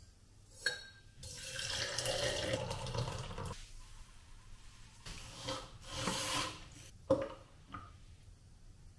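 Liquid poured into a tall glass jar for about two seconds, then a shorter second pour about six seconds in, with a sharp clink of a container just after.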